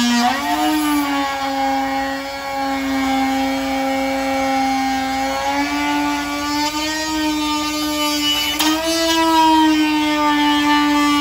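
Handheld rotary tool running at high speed with a round bit grinding through a clear plastic RC car body: a steady high whine whose pitch sags a little as the bit bites into the plastic and picks back up, with a brief click near the end.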